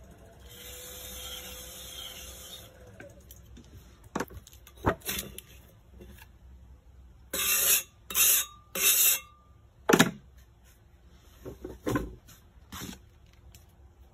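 Wet pottery cleanup at the wheel: a tool scraping along the base of a bowl on the turning wheel for a few seconds, then several short, loud scraping strokes across the slip-covered wheel head, with a sharp knock about ten seconds in.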